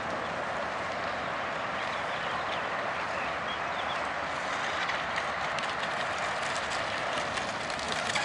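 Brushless electric RC outrigger racing boat running on the water: a steady rushing sound of motor and spray.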